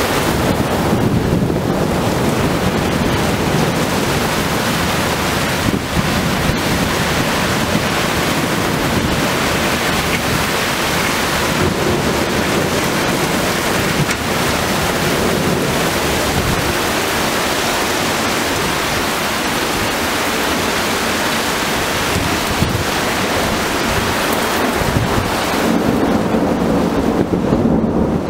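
Storm wind and heavy rain, with the wind buffeting the microphone: a loud, steady rush with no letup, carrying more low rumble near the start and the end.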